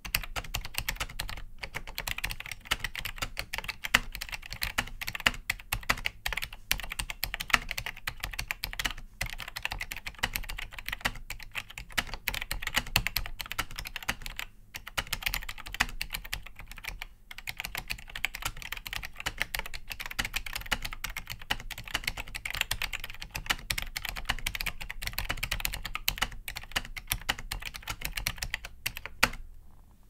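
Continuous touch-typing on an Optimus Maximus keyboard with Cherry ML switches: a dense, fast clatter of key presses, broken by a few short pauses.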